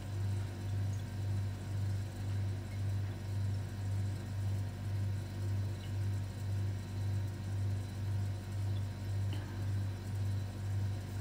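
Steady low electrical or mechanical hum that swells and fades about twice a second, like a running household appliance or motor.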